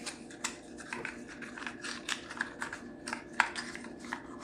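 Irregular light clicks, taps and rustles of items and packaging being handled in a box, with a sharper click about three seconds in, over a steady low hum.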